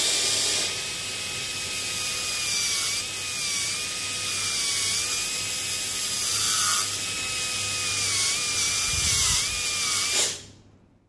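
Low-speed contra-angle dental handpiece spinning a tissue punch into the gum over a dental implant: a steady whine that dips slightly in pitch now and then, stopping about ten seconds in.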